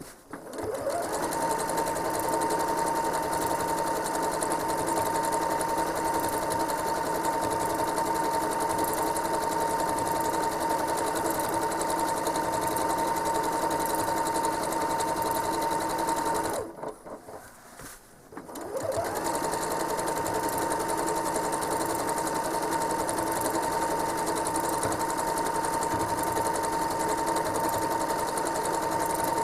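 Home sewing machine stitching at speed in free-motion quilting, its motor giving a steady whine. It winds up at the start, stops for about two seconds a little past halfway, then winds up again and runs on.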